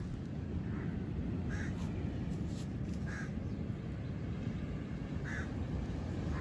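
A bird giving about four short calls, spaced a second or two apart, over a steady low rush of wind.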